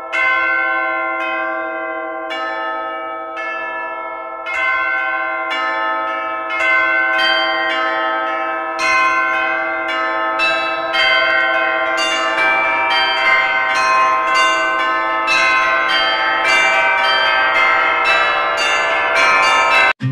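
Church bells ringing: a run of overlapping strikes, one or two a second, each tone ringing on under the next, growing fuller after about four seconds.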